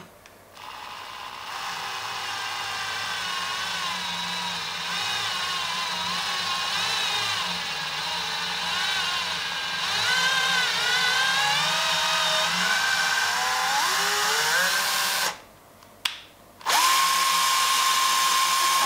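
Cordless drill boring into the aluminium frame extrusion of a 3D printer, run slowly and carefully, its motor whine wavering in pitch as the trigger is feathered. It stops about 15 seconds in, gives a short burst, then runs at a steady pitch near the end.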